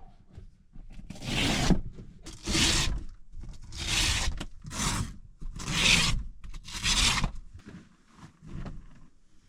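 Six rasping scraping strokes, roughly one a second, with fainter rustling after the last.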